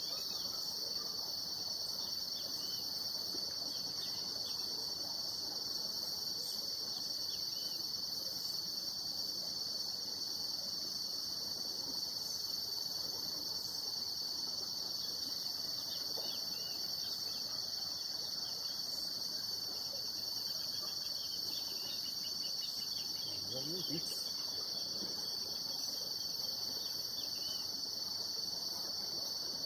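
Steady, high-pitched chorus of insects, a fine cricket-like trill that never lets up.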